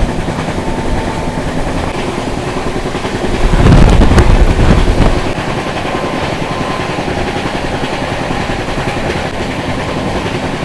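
Express passenger train running at speed, heard from an open coach door: a steady rushing rumble of the coaches on the track, louder for about a second and a half a few seconds in.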